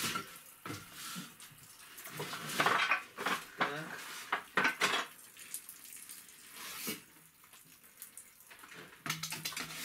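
Grey plastic sewer pipes knocking and clattering against each other and the wooden floor joists as they are pulled out and lifted, in a string of sharp knocks that is thickest in the first half.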